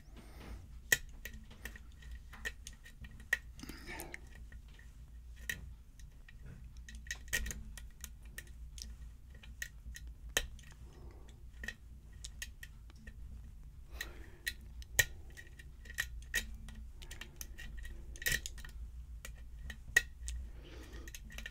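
Lock pick and tension wrench working inside a pin-tumbler lock: irregular light metallic clicks and ticks as the pins are probed and set, with a few sharper clicks.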